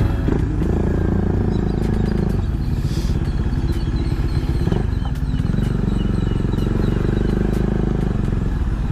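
Kawasaki Z H2's supercharged inline-four running steadily through an aftermarket SC-Project exhaust, a loud, even rumble with a brief change in tone about two and a half and again about five seconds in.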